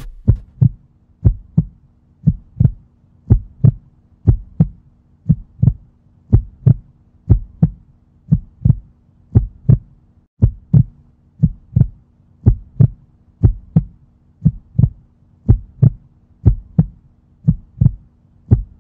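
Heartbeat-like double thumps, a lub-dub pair about once a second, over a faint low steady hum.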